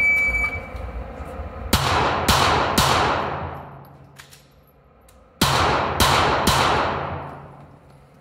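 Electronic shot timer's start beep, then a pistol fired six times in two quick strings of three, about half a second apart, with a pause of about two and a half seconds between the strings. Each shot echoes loudly around the indoor range.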